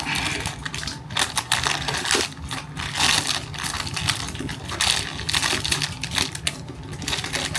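A parcel's packaging being opened by hand: irregular crinkling, rustling and tearing, with many quick clicks and scrapes.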